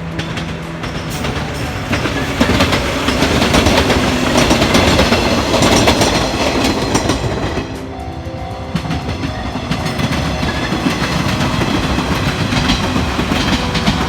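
Shinano Railway electric train passing close by, a rushing wheel-and-rail noise that builds from about a second in and is loudest from about two to seven seconds in. Repeated clacks from the wheels follow, with background music underneath.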